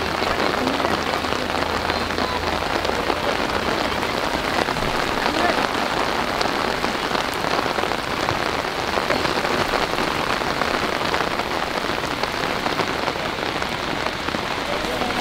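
Steady, even noise like rain falling on a surface, with faint distant voices.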